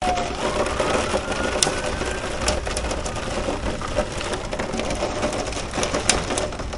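Heavy rain mixed with small hail pelting down, a dense rapid patter of ticks with a few sharper cracks standing out.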